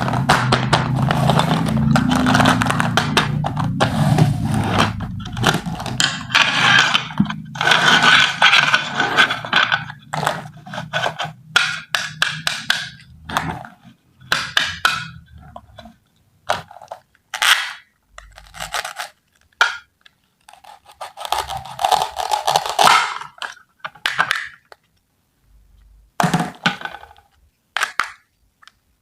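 Unboxing of a toy kitchen set, packaging and pieces handled by hand. Continuous crinkling and rustling runs for about the first half, then separate short scrapes, clicks and knocks with short pauses between them.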